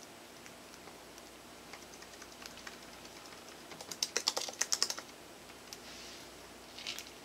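A quick run of light, sharp taps, about ten a second for roughly a second, most likely fingertips tapping on a tabletop mat. Fainter scattered ticks come before it, and there is a brief rustle near the end.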